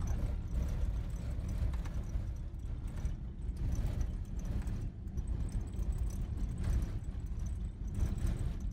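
Vehicle driving along a corrugated dirt road: a steady low rumble of engine and tyres with irregular knocks and rattles over it.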